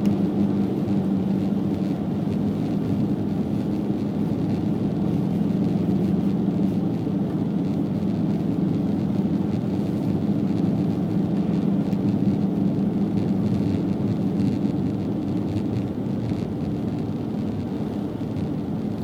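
Steady in-cabin drone of a car cruising on the highway: an even engine hum mixed with tyre and road noise.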